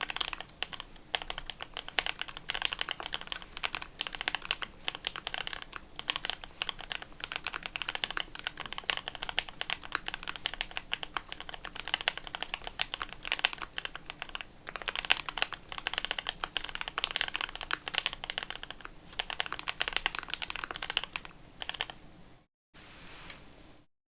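Continuous fast typing on a custom mechanical keyboard: lubed Gateron Ink Black linear switches in a top-mounted polycarbonate plate, with GMK ABS keycaps, making rapid clacks. The typing stops near the end.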